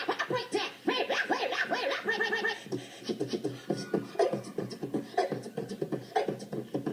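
Beatboxing: a fast, choppy run of mouth-made percussion and vocal noises, with a short stuttering scratch-like passage about two seconds in.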